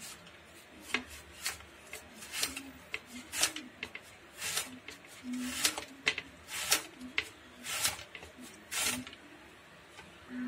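A kitchen knife slicing a brinjal (eggplant) into thin rounds on a cutting board: about fifteen short, crisp cuts, irregularly spaced at one or two a second.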